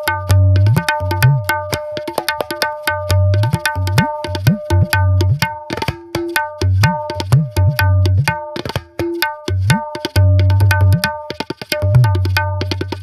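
Tabla played in a quick, dense rhythm: sharp ringing strokes on the small treble drum over deep bass-drum strokes, many of which bend upward in pitch.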